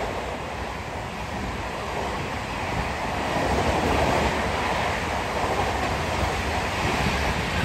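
Tejas Express passenger coaches running past at speed: a steady rush of wheels on rail and moving air.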